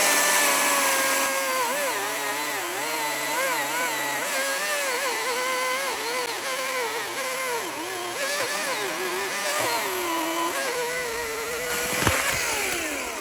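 Chainsaw cutting through a log, its pitch dipping and recovering as the chain loads up in the wood, then winding down near the end.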